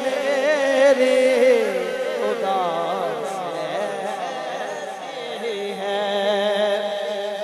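A man's voice singing a naat through a microphone, with ornamented, wavering phrases early on that give way to held notes, over a steady low drone.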